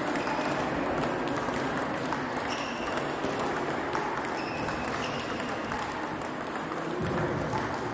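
Table tennis rally: a plastic ball clicks again and again off the rackets and table, over the steady background noise of a large sports hall.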